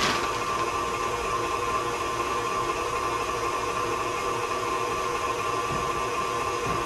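KitchenAid tilt-head stand mixer running steadily, its motor whirring as it mixes banana bread batter.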